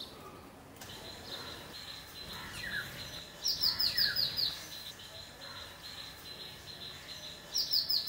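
House sparrows chirping: quick runs of short, falling chirps, loudest about three and a half seconds in and again near the end, over a steady high-pitched tone.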